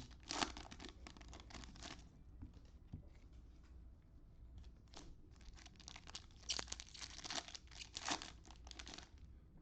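Plastic trading-card pack wrappers crinkling and tearing in short, crackly bursts as cello packs are opened and handled: a burst at the start, a quieter stretch, then more from about six and a half seconds in.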